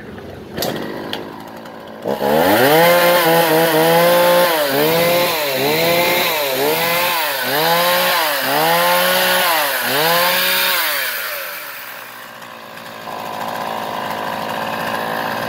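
Ryobi 335 33.4 cc two-stroke chainsaw being revved in quick throttle blips, about one a second, the engine pitch rising and falling with each. Near eleven seconds it drops back to a steady idle.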